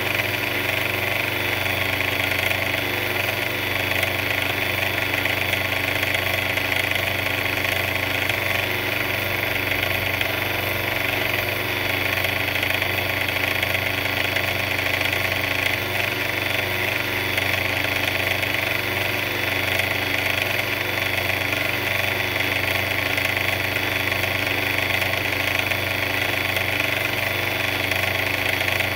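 Small engine of a mixer running steadily at a constant speed, with an even mechanical drone.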